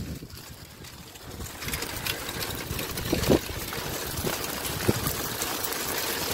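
A dog rig drawn by two Samoyeds rolling along a gravel track: a steady rush of wheel and paw noise that grows louder about a second and a half in, with a few knocks from the rig's frame.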